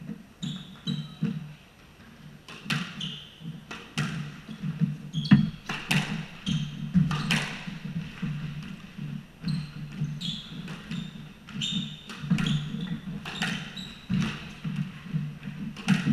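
Squash rally: the ball smacking off the rackets and the court walls in sharp hits, about one or two a second, with short squeaks of court shoes and footsteps on the wooden floor between them.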